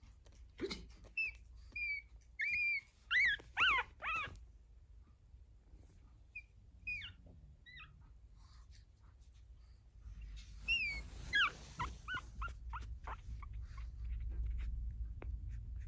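Two-week-old pug puppies whimpering: short high squeaks, many rising then falling in pitch, in small clusters, with a quicker run of them a little past the middle.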